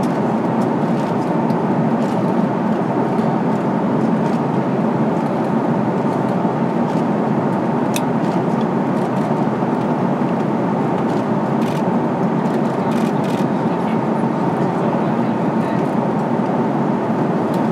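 Steady cabin roar inside an Airbus KC-30A tanker in flight: engine and airflow noise heard through the fuselage, with a few faint clicks.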